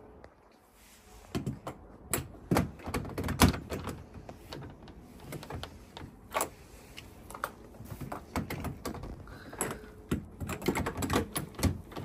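Irregular clicks and knocks of a key and lock hardware being handled against a uPVC door's edge during a euro-cylinder lock change, starting about a second in.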